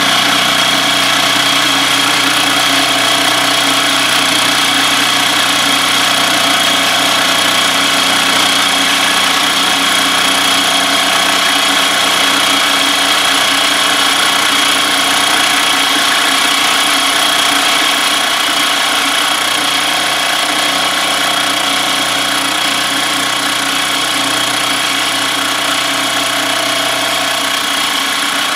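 Milling machine running steadily, its spindle turning a large milling cutter as the table feeds a metal part under it to mill a flat face.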